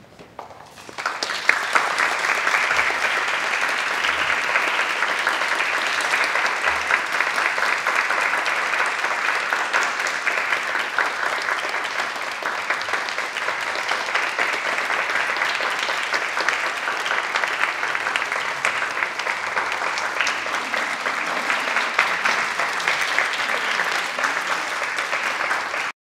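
Applause from a small group of people clapping by hand. It starts about a second in, holds steady, and cuts off suddenly at the end.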